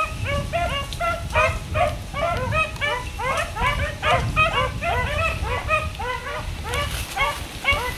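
A pack of hunting hounds barking in chorus, several dogs at once, giving many short overlapping barks in quick succession: the sound of hounds running a trail.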